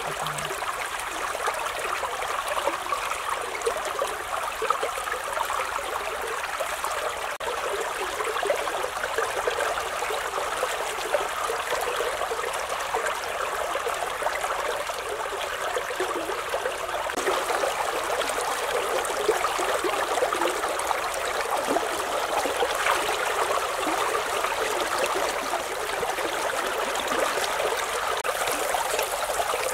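Shallow river running steadily, with water splashing and lapping around hands and a clay pot held in the current.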